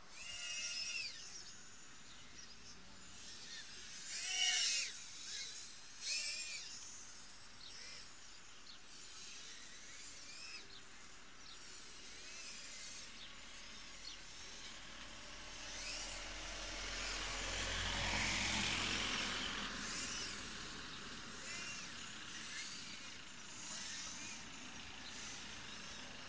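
Tiny whoop quadcopter motors whining in short bursts, the pitch sweeping up and down with throttle, loudest about four and six seconds in. Midway a broad rush of noise with a low rumble swells and fades.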